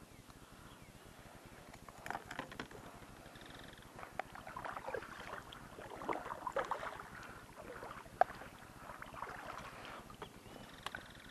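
Quiet, irregular splashing and dripping of a kayak paddle dipping into calm water as the kayak is turned, with a sharp knock a little past eight seconds.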